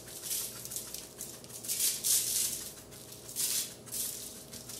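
Lemon pepper shaken from a spice shaker onto fish fillets: about three short rattling bursts of shakes, the strongest about two seconds in.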